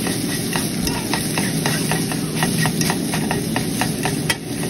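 A fork scraping and tapping against a stainless steel frying pan while scrambling an egg, several sharp clicks a second, over the steady sizzle of the egg frying in oil.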